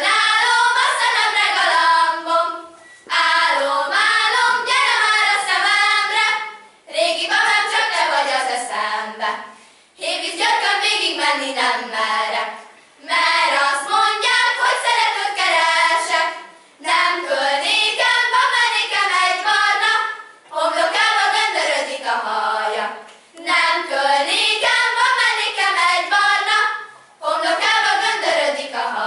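A group of young girls singing a Hungarian folk song unaccompanied, in phrases of three to four seconds with a short breath between each.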